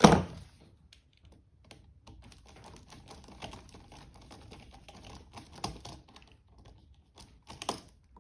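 A sharp knock at the start, then a run of small, irregular clicks and taps: bare copper ground wires being wrapped together and fastened to the terminals of a wall outlet.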